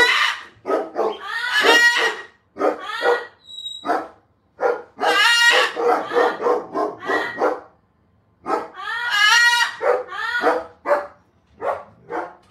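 A pet animal calling loudly in rapid strings of short pitched calls, in several bursts with brief pauses between them, and a short high beep-like tone about three and a half seconds in.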